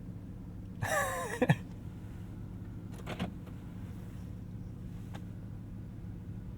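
BMW E92 M3's V8 idling steadily, with a short sliding vocal-like sound and a sharp click about a second in and another brief click around three seconds.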